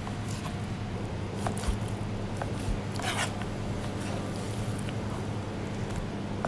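Knife slicing raw chicken breast into strips on a plastic cutting board: soft cuts with scattered light taps of the blade on the board, and a brief swish about three seconds in, over a steady low hum.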